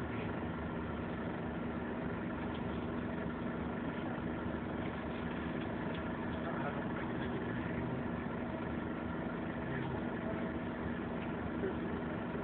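Scania OmniLink bus engine idling steadily, heard from inside the passenger saloon as an even, unchanging hum.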